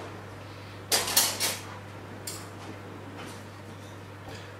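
Metal knife and fork clinking and scraping on a ceramic plate while cutting a piece of cooked chicken: a quick cluster of three clinks about a second in, then a few lighter taps.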